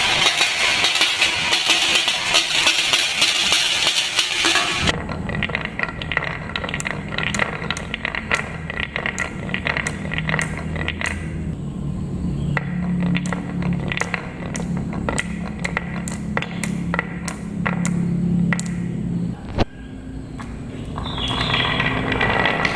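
Glass marbles running down a wooden marble run: a dense clattering rattle for the first five seconds, then a low rolling rumble of marbles on wooden track, broken by many sharp clicks as they drop and knock between pieces.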